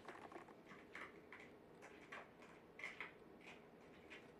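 Faint, irregular light taps and clicks of a Shiba Inu puppy's paws padding on the floor as it moves about and noses a small toy ball.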